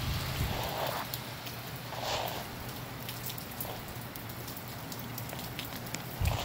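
Steady rain falling, with many individual drops ticking close by. Gusty wind rumbles low on the microphone at the start and again near the end.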